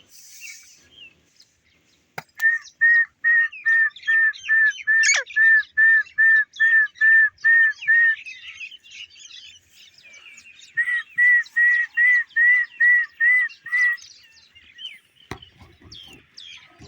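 Pet parrot calling in two loud runs of rapid, evenly repeated calls, about three a second, with a pause of a few seconds between the runs. Fainter chirping of other birds runs underneath.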